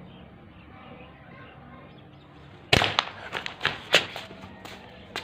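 A B3-2 underlever spring-piston air rifle firing once, about two and a half seconds in. A quick run of sharp clicks and clatters follows as the pellet knocks the small target over on the concrete.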